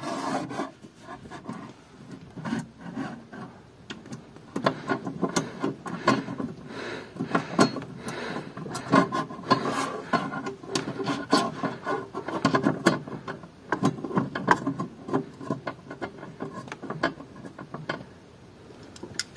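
Irregular scraping, rubbing and small clicks of metal fittings against the wood of an old wardrobe as a bolt is worked by hand into its place.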